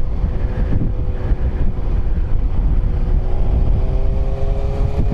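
Yamaha FZ1 inline-four motorcycle engine running at a steady cruise, under heavy wind rush on the microphone. A faint hum in it rises slightly in pitch about three seconds in.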